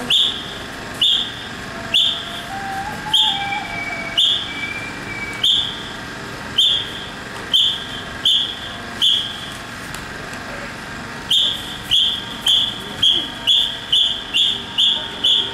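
A whistle blown in short, sharp, high-pitched blasts, about one a second at first, then after a short pause a quicker run of about ten blasts, close to three a second.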